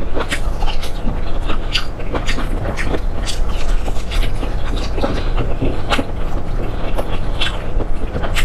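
Close-miked chewing and mouth sounds of food being eaten, a stream of irregular wet clicks and crunches over a steady low rumble.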